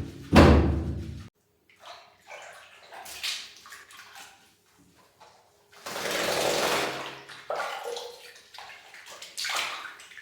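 Water splashing and running in uneven bursts while a cat is washed, with a loud bump about half a second in.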